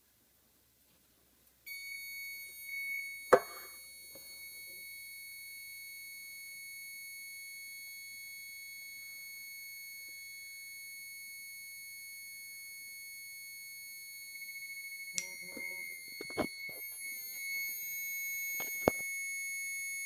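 Sonitron SMA-24L piezo buzzer on a homemade WiFi smoke detector sounding one continuous high-pitched tone, starting a couple of seconds in: the detector's alarm, set off by sensed smoke. A sharp knock comes just after the tone starts, and a few clicks and knocks follow near the end.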